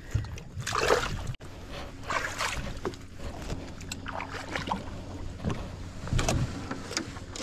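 A boat's motor running steadily with a low hum, with scattered short knocks and rustles on top.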